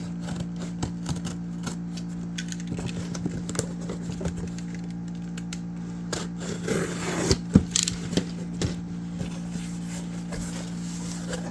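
A cardboard shipping box being handled and opened: scattered taps, scrapes and clicks, with a louder stretch of rustling and a sharp knock about seven seconds in. A steady low hum runs underneath.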